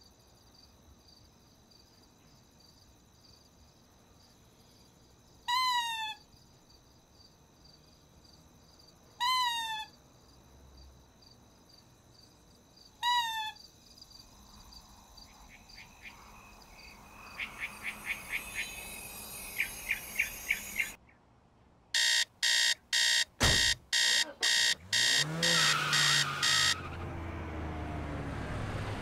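An alarm clock beeping: soft, quickening beeps build up, then loud regular beeps about two a second for some five seconds before they stop. Before it, a faint steady high trill and three short falling chirps; near the end a car engine on a street.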